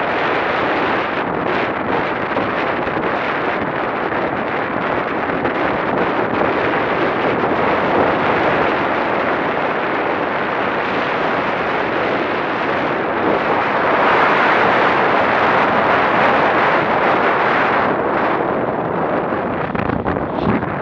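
Wind rushing over a bike-mounted action camera's microphone as a road bike rides at speed. It is a steady, rough rush that grows louder for a few seconds about two-thirds of the way through.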